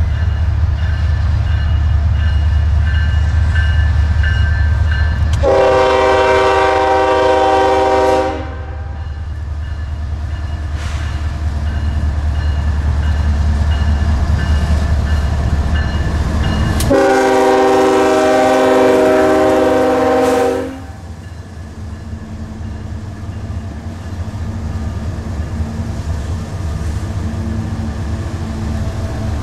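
Union Pacific GE ES44AC diesel locomotives passing with an intermodal train. The lead unit's air horn sounds two long, multi-tone blasts, the first about five seconds in and the second some eleven seconds later, over the heavy low rumble of the engines. Once the locomotives are by, the rumble drops away and leaves the steady rolling of the cars' wheels on the rails.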